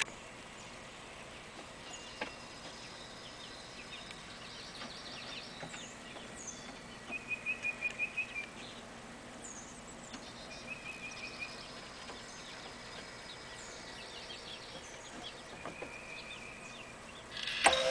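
Small birds chirping and trilling, with a run of about six quick trilled notes around seven to eight seconds in. Near the end, a sharp click as the car power-antenna motor of the coop door opener switches on.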